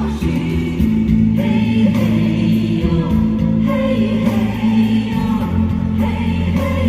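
Live concert music: singing over instrumental backing with sustained low bass notes.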